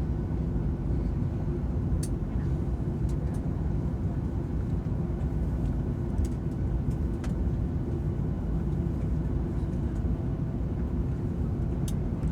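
Steady low rumble of a jet airliner's engines and airframe heard inside the passenger cabin, with a few faint light clicks.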